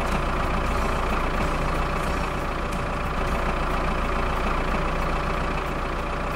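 Tractor engine running steadily, a sound effect that starts abruptly and cuts off suddenly near the end.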